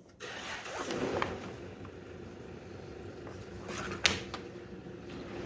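Scraping and rustling of parts being handled as a lead is pulled through an e-bike casing, with a sharp click about four seconds in.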